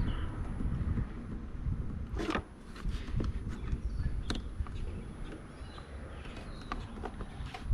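Scattered light clicks and knocks from hands moving wiring and connectors, with a steady low rumble underneath.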